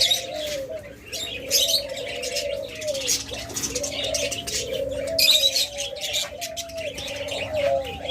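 Many caged doves cooing over and over, overlapping one another, with budgerigars chirping and chattering high above them.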